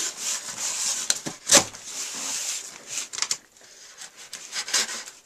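A shipping box being handled: rubbing and scraping of the packaging, with a sharp knock about a second and a half in.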